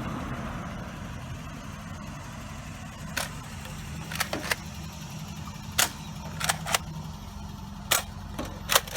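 A car's steady low running hum, with a string of short sharp clicks and snaps from about three seconds in, about nine in all.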